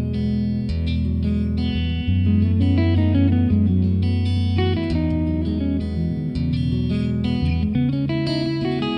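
Background guitar music with a low bass line.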